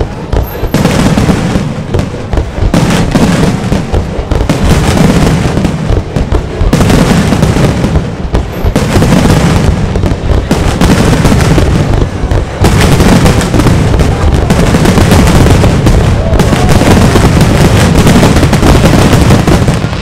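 Fireworks display: aerial shells bursting in a rapid, almost unbroken barrage of booms and crackle, loud throughout with only brief lulls.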